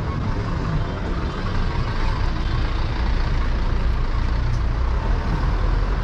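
Busy city-street traffic: a steady wash of passing vehicles with the low rumble of heavy engines, which grows stronger near the end.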